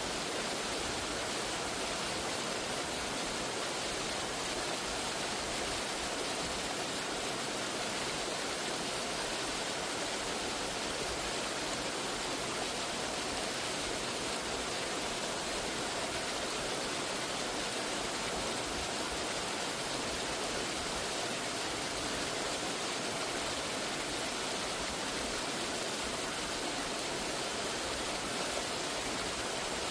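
Steady, unbroken rush of falling water from a mountain waterfall, a full, even hiss with no pauses or changes.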